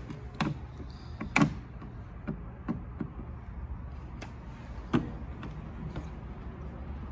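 Plastic cowl-panel retaining clips being popped loose by hand: about half a dozen sharp clicks and snaps, the loudest about a second and a half in, over a steady low hum.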